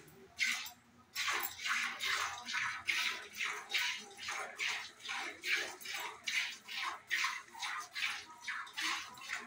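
Cow being milked by hand: jets of milk squirting into a steel bucket in a steady rhythm, about two to three squirts a second, with a short break near the start.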